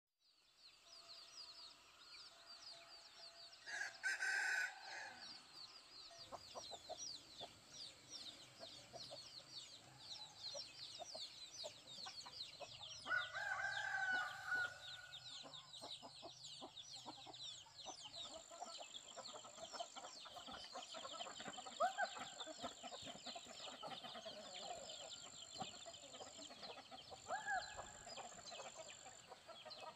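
Rooster crowing, about four seconds in and again around thirteen seconds, with chickens clucking now and then, over a steady background of rapid high-pitched chirping.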